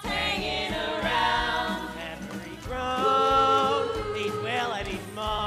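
Ensemble cast singing a musical-theatre number together over instrumental accompaniment, with long held notes about halfway through and a sliding vocal line shortly after.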